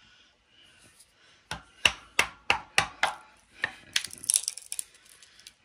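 Screwdriver knocking and prying at a small part clamped in a bench vise: about six sharp knocks, roughly three a second, starting about a second and a half in, then scraping and cracking.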